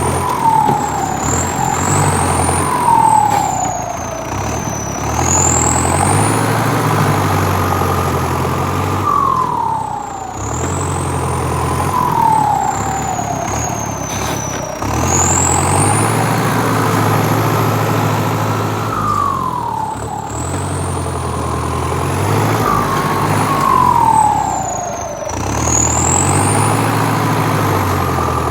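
Emergency vehicle siren wailing, its pitch slowly rising and falling about every five seconds, over a steady low engine hum.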